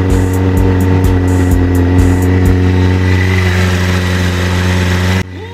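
Suzuki GSF600 Bandit's inline-four engine running at a steady speed, with a regular pulse about four times a second over the first half. It cuts off abruptly near the end.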